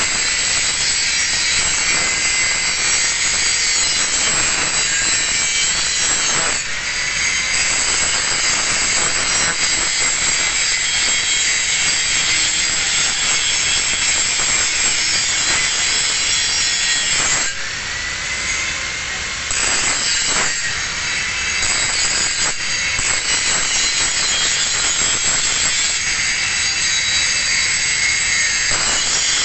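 Angle grinder grinding a single bevel on a steel plate edge: a steady, harsh grinding. About two-thirds of the way through it eases off the metal for about two seconds, the disc's whine rising, then bites in again.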